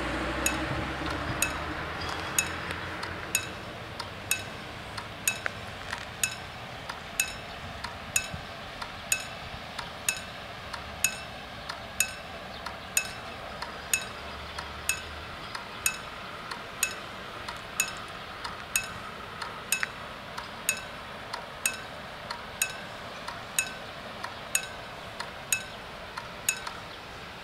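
Level-crossing warning bells striking single rings about once a second, warning that a train is approaching. The strokes stop near the end as the barriers come down. A car drives away over the crossing, fading in the first couple of seconds.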